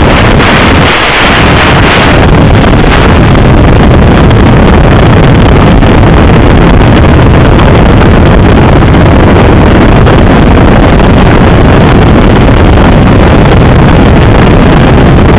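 Bixler 2 model plane's electric pusher motor and propeller running in flight, with wind rushing over the onboard microphone; a loud, steady, distorted noise.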